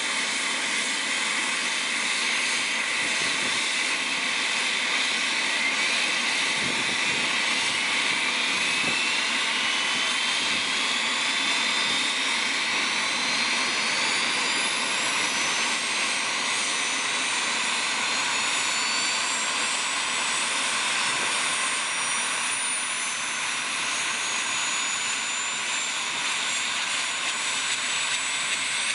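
Kamov coaxial-rotor helicopter running on the ground, its turbine engines giving a steady rush with a high whine that climbs slowly in pitch as the engines speed up.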